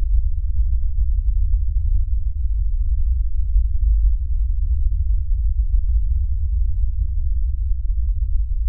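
A steady, deep bass rumble with nothing higher in pitch over it, a low drone under the end credits.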